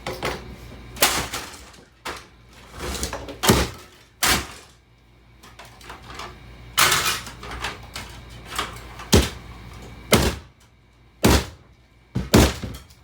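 A five-disc CD player being smashed: a dozen or so hard blows at irregular intervals, about one a second, each a sharp knock with plastic and metal parts cracking and rattling.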